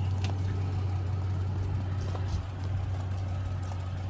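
Truck engine idling with a steady low hum.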